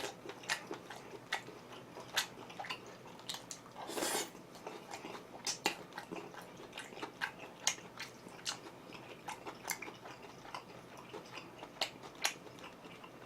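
A person chewing and biting chewy seafood close to the microphone: many small, irregular wet clicks and smacks.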